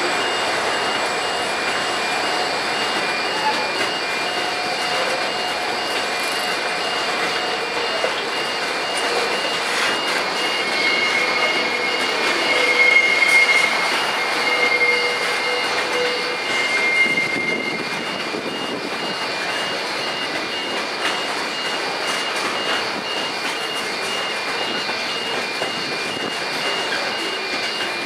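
Container wagons of an intermodal freight train rolling past: a steady clatter and rumble of wheels on rail. A high-pitched wheel squeal rises over it for several seconds around the middle.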